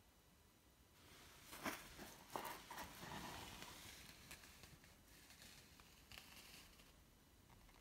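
Faint rustling and a soft hiss that rise about a second in, with two sharp clicks soon after and a few lighter ticks, then fade back toward quiet.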